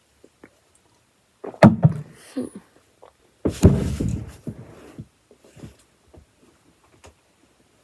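A sharp knock about a second and a half in, then a louder stretch of bumping and rustling for about a second and a half from three and a half seconds in, with a few faint taps after.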